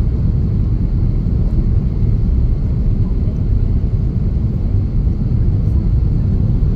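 Steady low cabin rumble inside an Airbus A330-300 descending on approach: its Rolls-Royce Trent 700 engines and the rush of air over the fuselage, heard through the cabin wall at a window seat.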